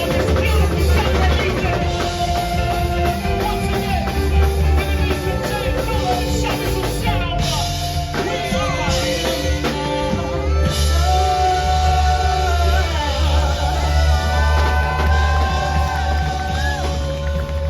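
Live band playing rock music: a drum kit and heavy bass under sustained melodic lines that bend in pitch, with some singing. Near the end a long held note slides down in pitch.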